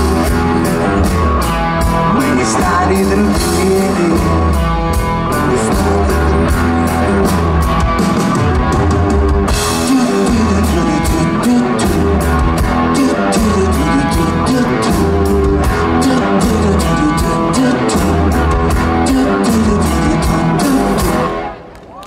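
Live rock band playing the closing instrumental bars of a song: electric guitars, bass and a drum kit with steady cymbal strokes, stopping abruptly near the end.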